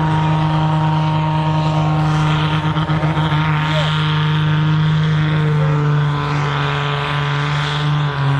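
Volvo BM 810 pulling tractor's engine running flat out under full load as it drags the weight-transfer sledge, holding a steady pitch.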